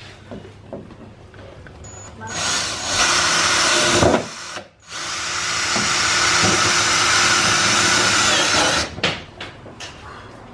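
Ryobi cordless drill running under load against a widebody fender panel while fixing it on with screws. It runs in two goes: a short burst about two seconds in, a brief stop, then a longer steady run that cuts off near the end.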